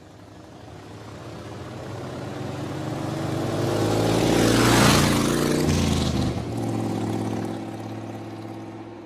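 A motor vehicle approaching and passing by: its engine grows steadily louder to a peak about five seconds in, then the pitch drops as it goes past and fades away.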